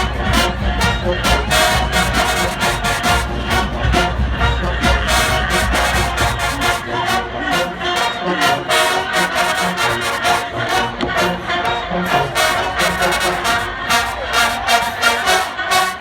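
Marching band playing: brass section (trumpets and trombones) over a fast, steady drum beat. A low rumble sits under the first seven seconds or so, then drops away.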